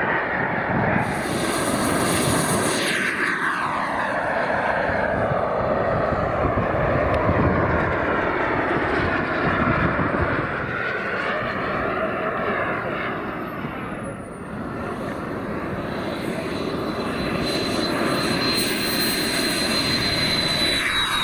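Radio-controlled model jet engines. First a model jet flies past with its roar falling in pitch as it goes by. About two-thirds of the way through, after a cut, another model jet's engine runs on its take-off roll with a steady high whine over the roar.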